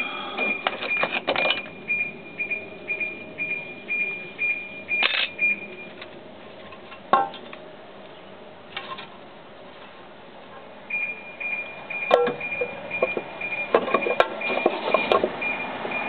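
Metal parts and tools clinking and knocking as a 50cc scooter's CVT transmission is worked on by hand, with a scattered run of knocks in the last few seconds. Through most of it a faint high beep repeats about twice a second, stopping for a few seconds midway.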